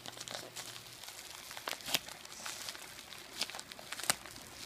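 White plastic bubble mailer crinkling and crackling as it is handled and torn open, with scattered sharp crackles, the loudest about two and four seconds in.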